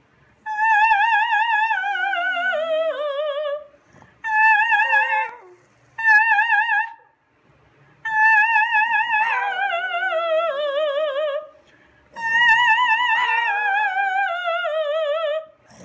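A woman singing operatic high notes with wide vibrato in five phrases, each held note sliding downward in pitch, with a pug howling along with her in the later phrases.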